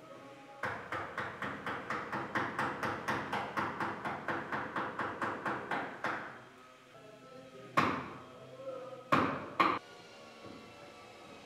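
Wooden mallet striking a chisel in quick, even light blows, about four a second, cutting a hinge recess into the edge of a wooden door shutter; the run stops a little past halfway, and after a pause come three sharper single blows near the end.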